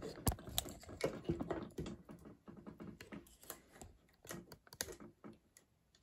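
Irregular small clicks and taps of hands handling the parts of an xTool RA2 Pro rotary attachment, seating the rotation piece and its bolt. The clicks come thick at first and thin out near the end.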